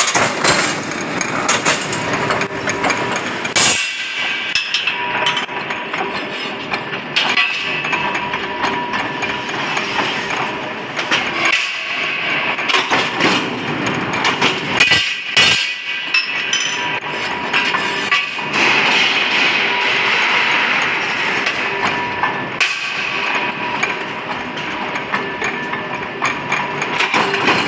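Press cutting mild steel angle in an angle-cutting die: repeated metallic knocks and bangs over steady machine noise.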